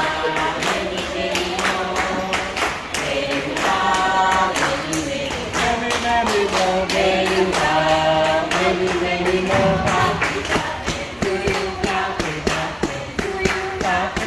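A group of people singing a birthday song together, accompanied by steady rhythmic hand clapping.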